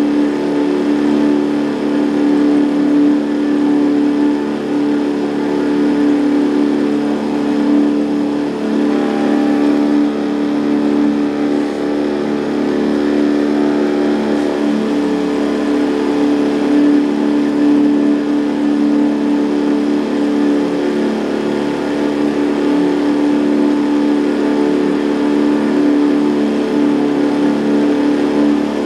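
Boat's outboard motor running steadily at one constant speed, its pitch unchanging.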